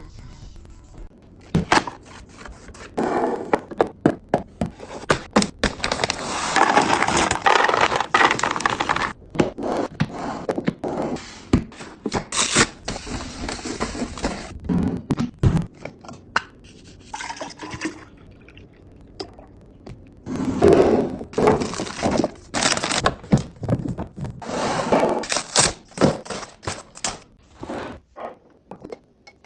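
Kitchen items being handled during a restock: many knocks and clicks of containers and packages being set down and opened, with several longer stretches of rustling or pouring.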